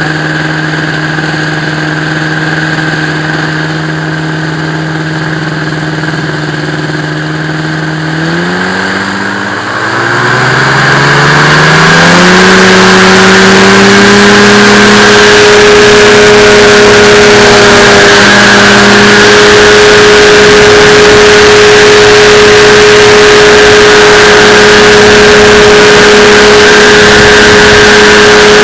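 Drift X170 powered parachute's engine and propeller running steadily at low power, then throttled up about eight seconds in, the pitch climbing over a few seconds to a steady high-power drone for the takeoff run.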